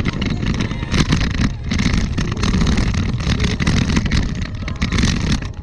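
Wind buffeting the microphone of a camera on the move, over the rumble of tyres rolling on a paved path, with frequent small bumps.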